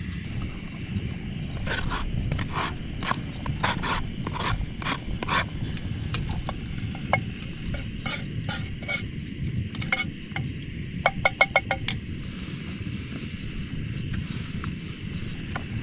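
Metal spoon stirring and scraping in a metal camping pot or mug, with many quick clinks that ring briefly and come thickest about eleven seconds in, over a steady low rumble.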